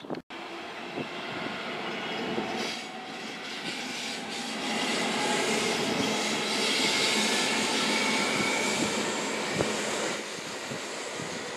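SBB RBDe 560 Domino regional electric train passing on a far track: a steady rumble of wheels on rail that builds, is loudest in the middle with a faint high whine, and drops off sharply about ten seconds in.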